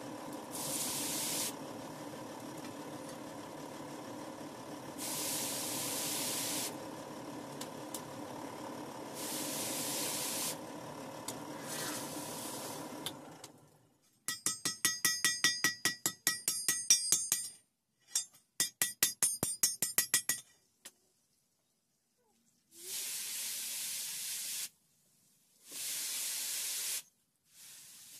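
A steady hum broken every few seconds by short bursts of hiss. Then a hand hammer strikes hot iron on an anvil in two quick runs of ringing blows, about four a second. Near the end come two longer hisses as the hot blade is quenched in a tub of water.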